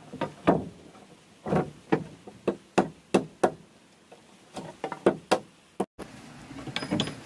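Machete blade chopping along the rough edge of a wooden plank: a string of irregular, sharp wooden chops, roughly two or three a second in clusters. After a short break near the end come a few lighter wooden knocks as a board is handled on the plank floor.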